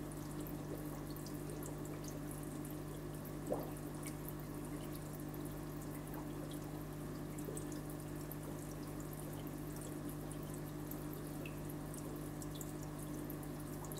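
Aquarium filter running: a steady low motor hum with water trickling and faint dripping, bubbly ticks. One brief louder blip about three and a half seconds in.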